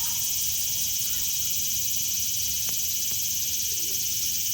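Cicadas singing in a dense, steady, high-pitched chorus.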